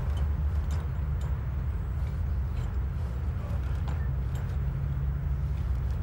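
Low steady rumble from the soundtrack of the outdoor chimney-climbing footage, with a few faint, brief ticks.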